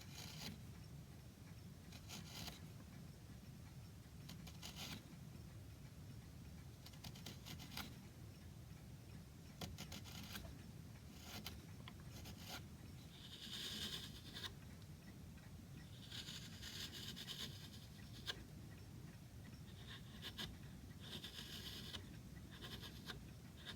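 Chisel paring thin shavings from a piece of lime wood: faint, intermittent scraping strokes, a few longer and stronger ones in the second half.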